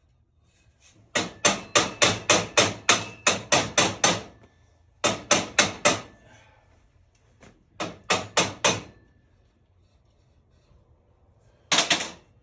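Hammer tapping on a muffler's sheet-metal lip to straighten it and seat the new piece: a quick run of about eleven sharp strikes, then shorter groups of four, and a quick cluster near the end.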